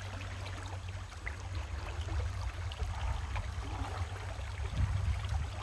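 Shallow river water running, over a steady low rumble.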